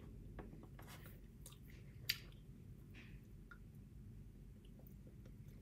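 Faint chewing of a sticky candy: soft scattered mouth clicks, with one sharper click about two seconds in.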